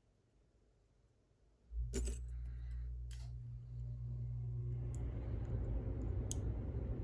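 Small metal clicks and clinks of lock pins and parts being handled, a few separate ticks. About two seconds in, a low steady hum starts and continues under them.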